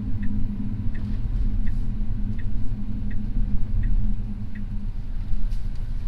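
Tesla Model 3 cabin at low speed: a steady low road rumble and hum, with the turn signal ticking evenly about once every 0.7 seconds.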